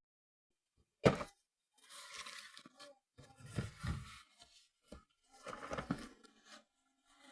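Packaging being handled and torn open: a sharp knock about a second in, then three bouts of tearing and rustling.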